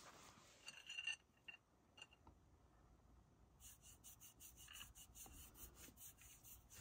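Near silence: faint outdoor room tone with a few soft clicks about a second in and a faint, quick run of ticks in the second half.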